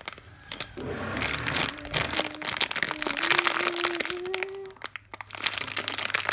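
Clear plastic packaging bag crinkling as hands squeeze and handle a foam squishy toy inside it. It comes in two stretches with a short lull about five seconds in.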